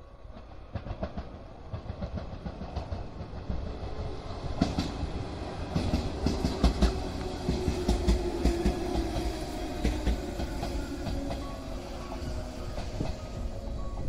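Yellow JR 115-series electric train running into a station, with its wheels clattering over the rail joints. It grows louder over the first several seconds as it draws alongside, then holds steady, and a faint held tone sounds over the clatter midway.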